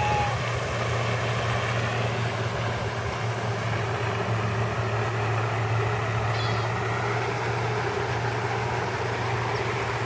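A steady low hum under an even, unbroken hiss, with a brief pitched bird call right at the start.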